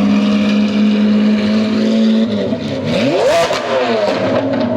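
Supercar engine running on a wet race track, held at steady revs, then revving up sharply about two and a half seconds in and dropping back down.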